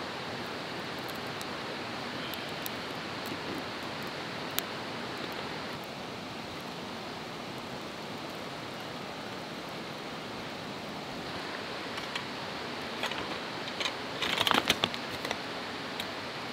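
Steady rushing background noise, with a brief clatter of a metal coffee pot being set down on the stones of a campfire ring about fourteen seconds in, a quick run of clinks and knocks.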